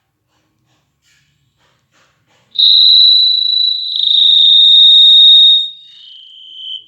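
Noise ColorFit Icon Buzz smartwatch's speaker sounding a steady high-pitched tone for about three seconds, then dropping to a lower, fainter tone before cutting off.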